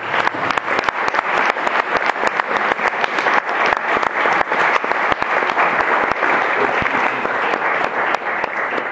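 Audience applauding: many people clapping steadily, a dense patter of claps.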